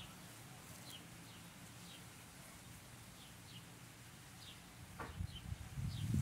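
Small birds giving short, high, downward-sliding chirps, repeated every half second to a second against a quiet background. A low rustling starts about five seconds in.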